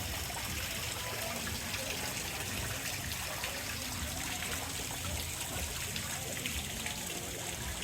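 Steady rain falling, with water trickling and dripping.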